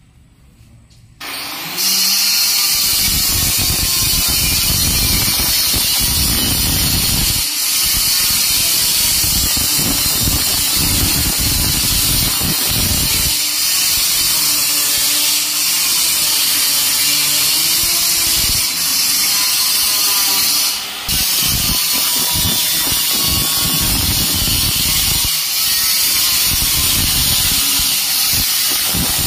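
Loud, steady mechanical noise with a strong hiss, starting suddenly about a second in, with a few brief dips.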